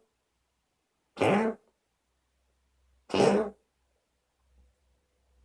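Two single coughs, each about half a second long, roughly two seconds apart.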